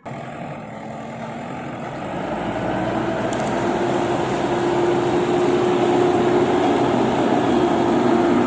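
Excavator engine running with a steady whine, growing louder over the first few seconds and then holding steady.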